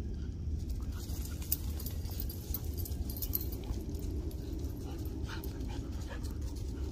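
Dogs at play making a few short vocal sounds, among soft clicks and rustles, over a steady low rumble.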